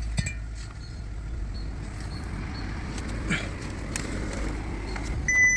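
A car's dashboard warning beep sounds near the end as a steady high tone, over a low rumble and a click near the start.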